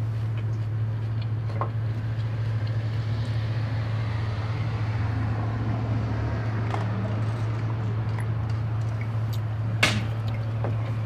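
Steady low hum under faint, scattered clicks of eating, with one sharper click near the end.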